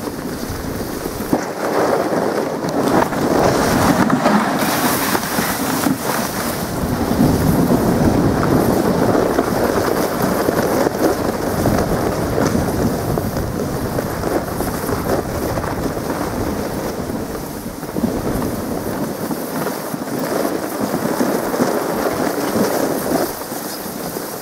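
Steady rushing, rumbling noise of a dog sled moving over a packed snow trail, with the runners scraping the snow and wind on the microphone.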